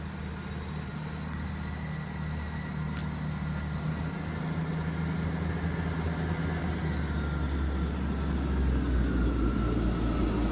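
Class 158 diesel multiple unit running into the platform, its underfloor diesel engines droning steadily and growing louder as it draws near. A whine falls in pitch near the end as the unit passes close by.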